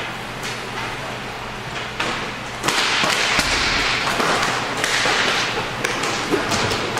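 Inline hockey play: sharp cracks and taps of hockey sticks striking the puck and each other. From about three seconds in, a louder, hissing wash of noise sits under the strikes.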